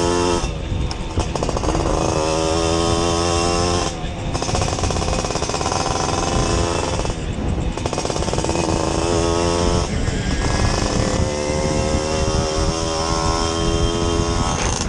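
Two-stroke Simson moped engine, bored to 60 cc and fitted with a Jack Motors exhaust, revving up. Its pitch climbs, breaks off and drops about 4, 7 and 10 seconds in, then climbs again.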